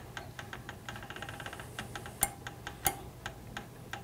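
Light, quick clicking from a rod blank being turned by hand in a rod-wrapping stand while thread winds onto it, about four to five faint ticks a second with two louder clicks midway.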